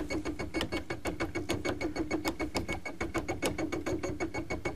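Bernina embroidery machine running with its PaintWork pen attachment, drawing on fabric: quick, even ticking over a steady hum. The pen is now set deep enough to leave a mark.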